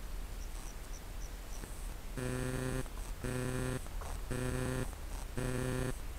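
A pitched, multi-toned beep that starts about two seconds in and repeats evenly about once a second, over a steady low hum.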